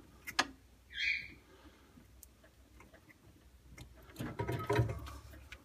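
Light clicks and rattles of plastic parts being handled as an ice maker's wiring and fittings are hooked up, with a short scrape about a second in and a denser clatter of handling near the end.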